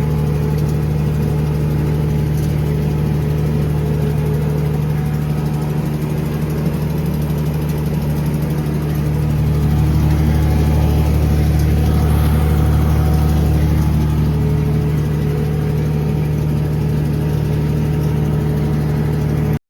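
Tractor engine running steadily under load with a deep, even hum. It gets a little louder about nine seconds in.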